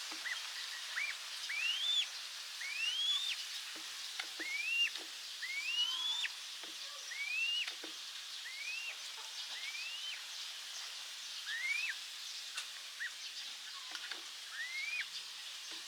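A bird giving a series of short whistled calls, each rising in pitch and then breaking off, about one a second, over a steady background hiss.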